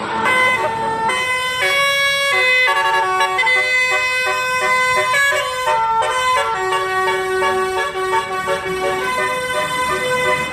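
Basuri musical bus horn (telolet horn) playing a fast melody of short, stepped notes, one after another.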